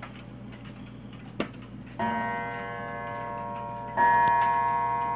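Seth Thomas mantle clock's open-escapement movement ticking, then its gong struck twice, about two seconds apart, as the clock strikes the hour. Each stroke is a deep ringing tone that dies away slowly, the second louder than the first. A single click comes shortly before the first stroke.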